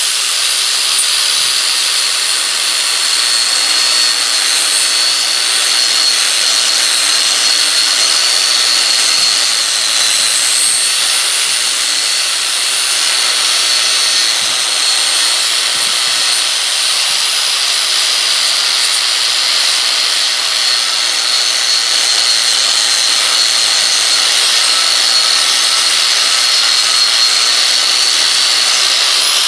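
Angle grinder running steadily against the steel of a railroad-track anvil, a high whine over a harsh grinding hiss, as the metal is ground clean for welding.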